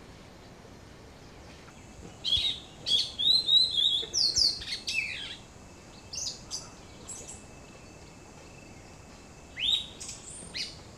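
Birds chirping: a flurry of short, high chirps and quick falling whistles starting about two seconds in and lasting a few seconds, then scattered single chirps, with one more near the end.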